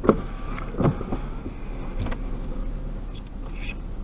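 A car creeping forward at low speed, heard from inside the cabin: a steady low engine hum with a few knocks and short creaks in the first second, and another knock about two seconds in.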